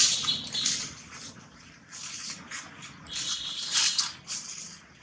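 Dry leaves crackling and rustling as the monkeys shift on leaf-littered ground, in irregular bursts, loudest right at the start and again near four seconds in.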